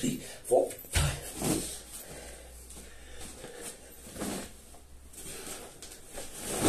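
Heavy breathing and a short grunt from a man exercising, with a sharp thud on a rubber gym floor about a second in and a softer one just after, then quieter panting and shuffling as a sandbag is heaved up.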